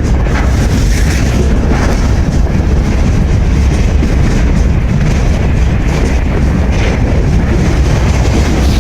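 Loud, steady rumble and clatter of a moving freight train heard from on board, its wheels clicking over the rail joints.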